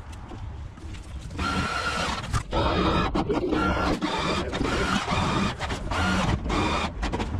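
Electric motor of a powered stair-climbing trolley whining under the load of a vending machine, starting about a second and a half in and dipping briefly about every second and a half as it climbs each step.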